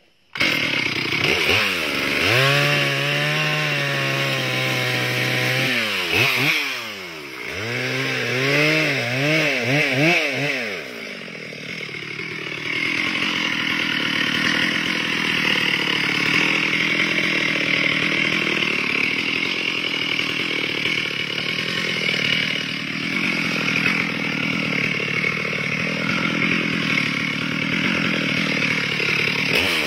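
Chainsaw engine comes in abruptly and is revved up and down twice, its pitch rising and falling. From about eleven seconds in it runs steady under load as the bar cuts into a tree trunk.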